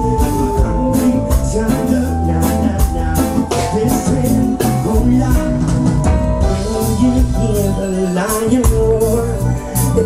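Live reggae band playing, with electric guitars, bass guitar and drums under a sung vocal line.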